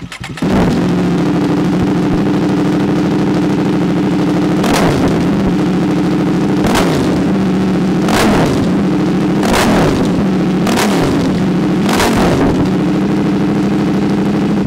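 KTM 790 Duke parallel-twin engine with an aftermarket SC-Project exhaust and its catalytic box removed. It is started at the outset, idles loudly, then takes six sharp throttle blips, each revving up and dropping back, before cutting off at the end. The owner calls the exhaust note ear-grating.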